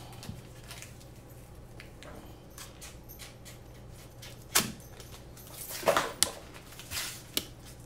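Scattered small clicks and knocks of drone parts, a pen-like tool and a battery lead being handled on a silicone work mat, the sharpest about halfway through and a cluster of them a little later. A low steady hum runs underneath.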